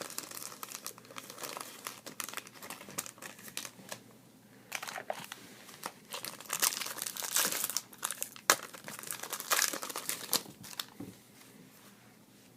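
Plastic or foil packaging crinkling and rustling in irregular bursts as trading cards are handled, dying down near the end.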